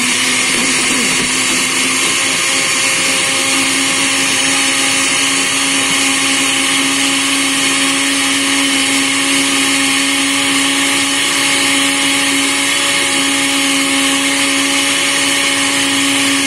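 Countertop blender with a glass jar running at a steady pitch, liquefying spinach leaves, apple and almonds into a green juice: an even motor whine with a hiss.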